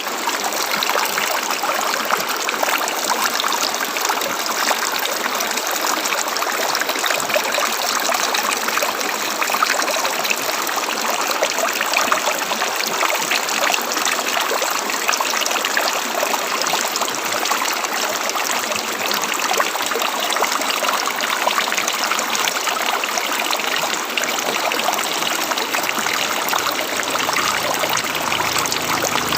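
A river running over rocks, a steady splashing rush of flowing water with little low rumble.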